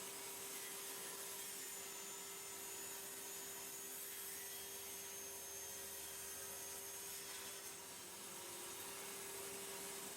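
Table saw running faintly, its blade cutting through a wooden pen blank, with a steady hum.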